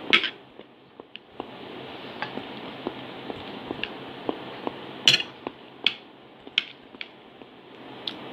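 Eating with a spoon off a plate: a scatter of short clicks and taps of the spoon against the plate, the sharpest a few strokes about five to seven seconds in, with chewing close to the microphone.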